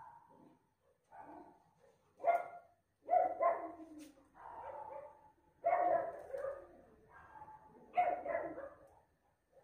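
A dog barking repeatedly, in a string of separate short barks.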